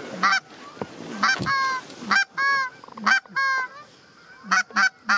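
Canada goose honks: a rapid series of about ten short, high honks in quick groups, a few held slightly longer, as geese work toward the decoy spread.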